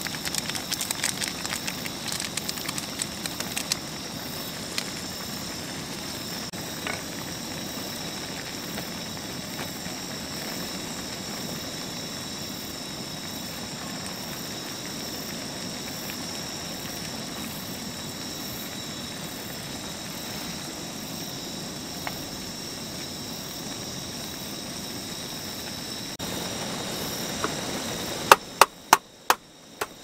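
Ramen noodles and water simmering and sizzling on a cast-iron griddle over a camp stove, a steady hiss. There is crackling and rustling for the first few seconds while the soup powder is sprinkled on, and a few sharp clicks near the end.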